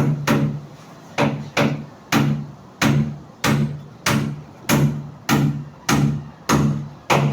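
Steady, rhythmic hammer blows, about a dozen at a little under two a second. Each strike is sharp and leaves a short low ring that dies away.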